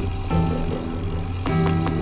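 Background electronic music: sustained low notes repeating in blocks, with sharp percussion hits.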